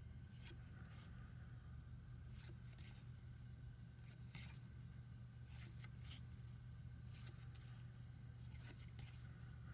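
Trading cards being handled while they are counted: about ten soft, short card-on-card slides and flicks, scattered irregularly over a faint steady low hum.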